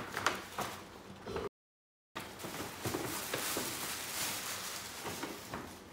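Tissue paper and a paper gift bag rustling and crinkling with sharp crackles as a gift is pulled out and unwrapped, broken by a dead-silent gap of about half a second about a second and a half in.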